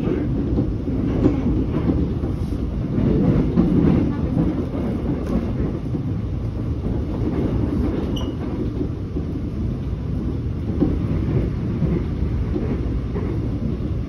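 Korail subway train running, heard from inside the passenger car: a steady low rumble with a few faint clicks.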